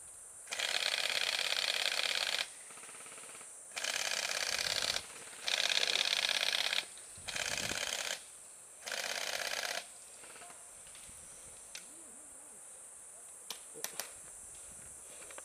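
Airsoft AK-type rifle firing five long full-auto bursts, each one to two seconds of rapid shots, followed by a few sharp single clicks near the end, over a steady high insect buzz.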